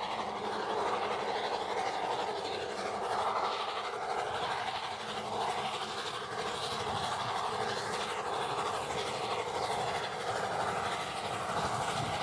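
A small model railway train running steadily along the track: the hum of its little electric motor mixed with wheels running on the rails.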